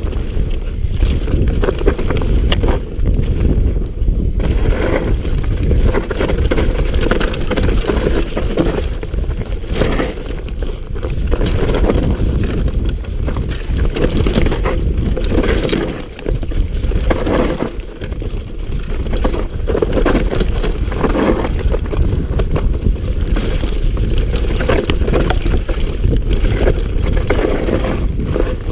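Mountain bike riding fast down a rough dirt and rock trail: a steady rumble of wind and tyre noise on the camera microphone, with constant rattling and knocks from the bike over the bumps. The noise eases briefly twice, about two-thirds of the way through.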